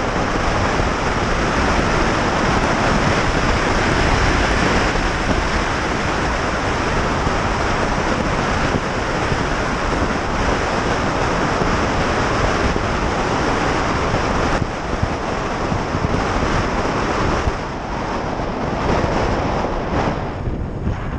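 Steady rush of wind buffeting the microphone of a camera mounted on a moving motorcycle, with road noise mixed in, easing slightly a few seconds before the end.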